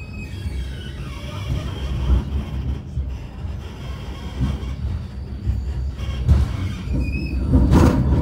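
Wiener Linien tram running on its rails: a steady low rumble, with high tones for a couple of seconds near the start and a louder noisy burst near the end.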